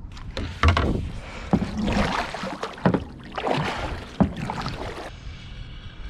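Kayak paddle strokes: the blade swishes and splashes through the water about once a second, then stops about five seconds in.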